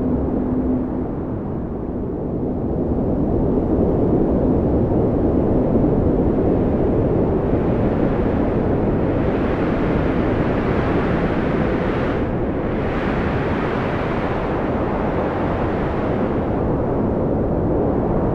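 Strong wind blowing, a continuous rushing with no pitch that swells after a few seconds. In the middle it turns brighter and more hissing, then eases back a little near the end.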